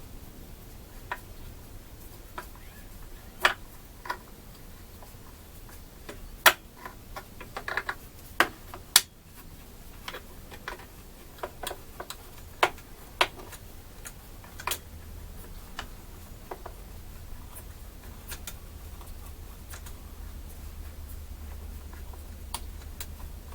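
Irregular sharp clicks and taps of hand tools and small parts being handled while a new carburetor is fitted to a chainsaw, busiest in the first half, over a low steady hum.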